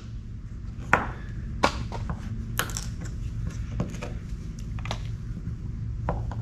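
Screwdriver prying and picking cut pieces of wood out of a wooden boat's hull planking: about half a dozen scattered sharp clicks and scrapes of metal on wood, over a steady low hum.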